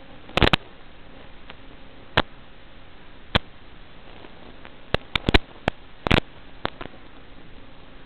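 Analog FPV video receiver's audio channel: a steady hiss broken by about a dozen irregular sharp clicks and pops, clustered around half a second, five seconds and six seconds in. The crackle is radio interference from the drone's analog video link.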